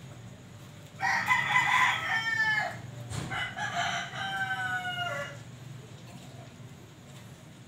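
A rooster crowing twice, each crow about two seconds long and dropping in pitch at the end.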